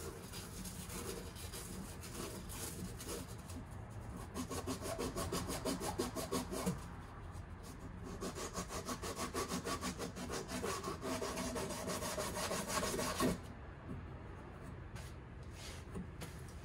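A copper cold-water line being cut by hand at a wall stub-out: rapid, even rasping strokes of metal on metal. They grow louder about four seconds in and stop suddenly near the end.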